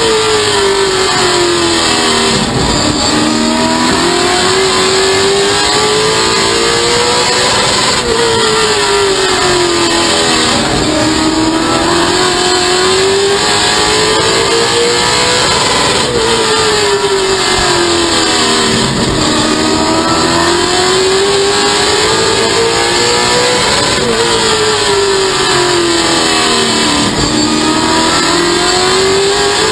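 Stock car's V8 racing engine heard from inside the cockpit, running hard around a short oval. Its pitch drops sharply and climbs back about every eight seconds as the driver lifts for each turn and accelerates out.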